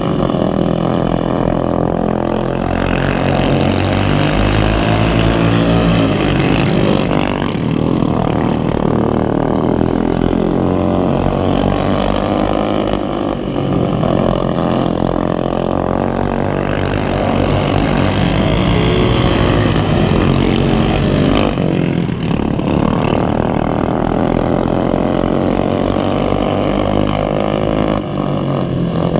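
Racing lawnmower engines running hard, several at once. Their pitch rises and falls repeatedly as they accelerate and ease off.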